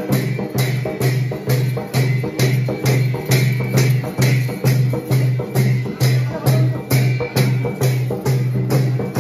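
Nepali folk dance music: a steady drum beat a little over twice a second, with brass hand cymbals (jhyamta) clashing on each beat.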